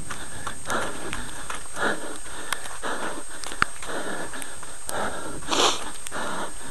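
A runner's rhythmic breathing, roughly one breath a second, with a few sharp clicks of footfalls or camera knocks.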